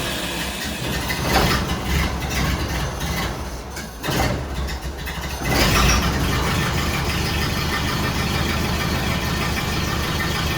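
1931 Ford Model A four-cylinder flathead engine being started, running unevenly for the first few seconds with a brief dip about four seconds in, then settling into a steady idle from about halfway.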